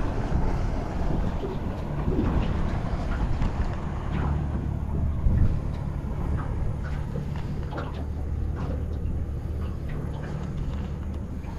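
Boat engine running with a steady low hum, over wind and water noise, with a single knock about five seconds in.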